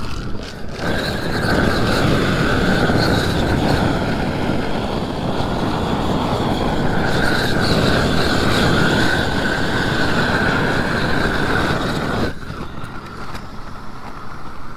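Propane roofing torch burning with a steady loud rush while it heats a torch-down modified bitumen patch to fuse it onto the roof. The rush starts about a second in and cuts off suddenly about twelve seconds in.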